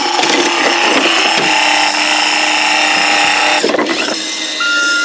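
Battery-operated toy sanitation truck playing its electronic sound effects through a small speaker: a loud, steady mechanical running noise that changes about three and a half seconds in, then a single electronic reversing beep near the end.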